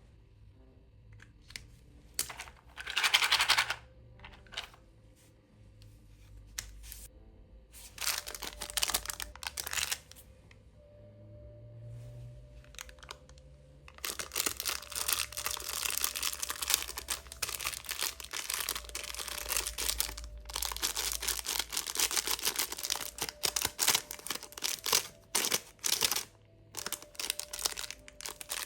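Plastic candy wrappers, lollipop wrappers among them, being torn open and crinkled by hand: a short sharp tear near the start, another crinkle a few seconds later, then a long stretch of dense crinkling and rustling with small clicks from about halfway on.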